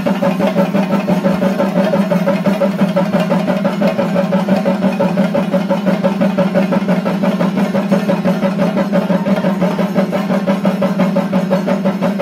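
Chenda drums played in a fast, continuous roll, a loud, dense and unbroken beat.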